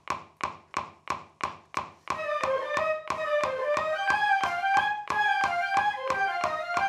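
A steady click at about three beats a second counts off six beats. About two seconds in, a marching band woodwind section of flutes and clarinets starts playing a melody over the click, which keeps time throughout.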